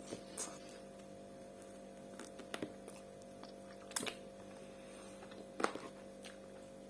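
A steady low electrical hum, with a handful of small sharp clicks scattered through it; the strongest come about two and a half and five and a half seconds in.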